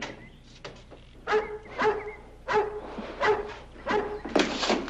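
Dog barking repeatedly, one short bark every half second to second.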